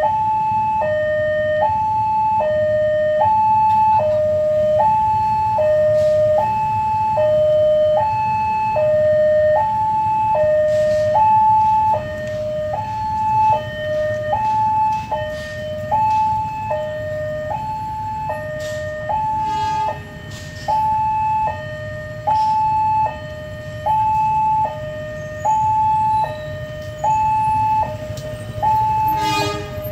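Railroad level-crossing warning signal sounding from the loudspeakers on the crossing posts: an electronic two-tone alarm switching steadily between a lower and a higher tone about once a second, warning that a train is approaching. A low rumble runs underneath.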